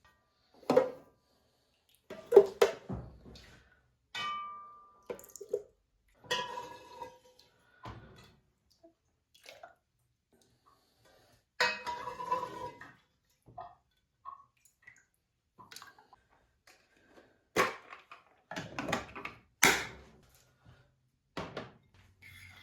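A spoon clinking and knocking against a soup bowl, in separate scattered strikes. A few of them ring briefly, clearest about four, six and twelve seconds in.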